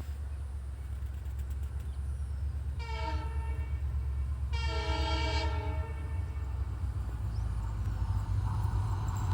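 Diesel locomotive approaching with a steady low engine hum, growing louder, and sounding its air horn twice: a short blast about three seconds in, then a longer one about a second and a half later.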